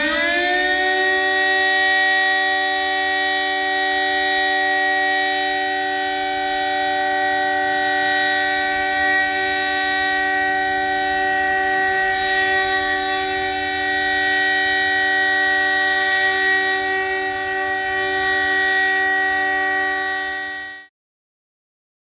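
Civil defense warning siren sounding a steady chord of several tones at once. It rises in pitch over the first second, holds steady for about twenty seconds, then cuts off near the end.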